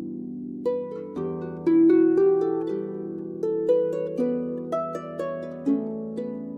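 Background music: a harp plucking a slow melody of single notes over held lower notes.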